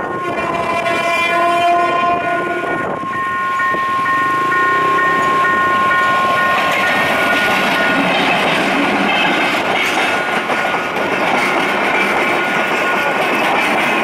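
Diesel passenger locomotive sounding its multi-note air horn in two long blasts, the first breaking off about three seconds in. The locomotive and its coaches then run past close by, with wheels clattering over the rails.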